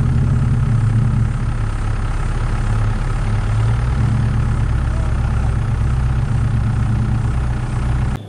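A four-wheel-drive's engine idling steadily with a deep, low hum, cutting off suddenly near the end.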